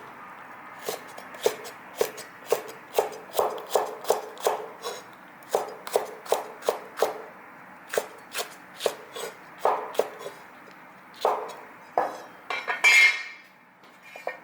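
Kitchen knife chopping on a cutting board: a steady run of short knocks, about two a second, then a louder, longer noise near the end.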